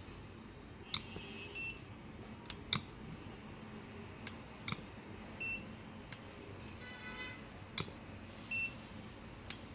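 MeterGlobal EC-770 coating thickness gauge taking repeated readings on a standard plastic film: sharp clicks as the probe is set down on the film, and three short high beeps as the gauge registers a measurement.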